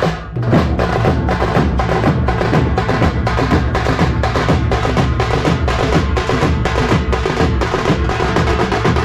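A tasha-ramdhol band of several drummers beating large double-headed dhol drums with sticks in a fast, driving, even rhythm, about three strong strokes a second.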